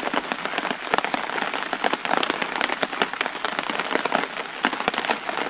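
Heavy rain falling, a dense steady hiss full of sharp pattering drops.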